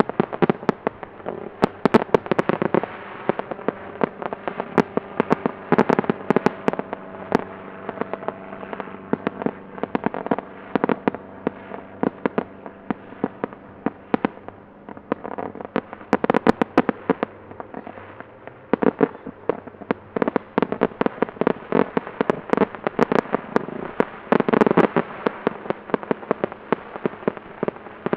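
Airborne pyrotechnics fired from a display helicopter: a dense, continuous run of crackling firework pops and sharp bangs, several a second, over a faint steady hum.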